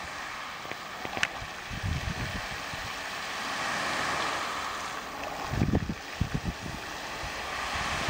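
A row of lake fountain jets rushing and spraying onto the water: a steady hiss that swells in the middle. Wind gusts buffet the microphone with low rumbles about two-thirds of the way through.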